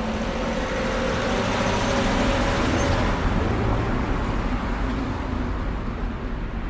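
Busy city street traffic: a steady rumble of engines and tyres, with one vehicle's engine hum swelling through the middle and easing off near the end.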